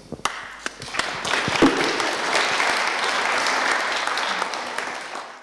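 Audience applauding: a few scattered claps at first, building into full, steady applause about a second in.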